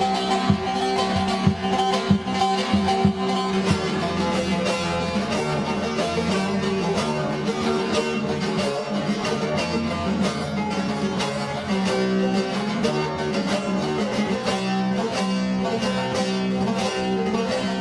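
Several bağlamas, Turkish long-necked lutes, playing an instrumental passage together, with quick, even plucked strokes over a steady low drone note.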